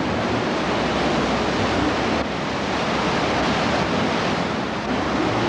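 Floodwater rushing down a steep road as a torrent, a steady loud rush of water.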